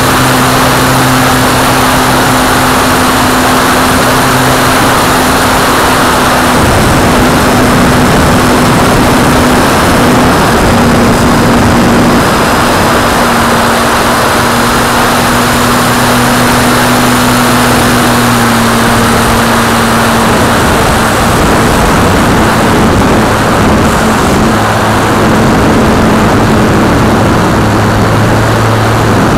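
Multiplex FunCub's electric motor and propeller running in flight, a steady hum that shifts slightly in pitch now and then with throttle, under heavy wind rush over the onboard microphone.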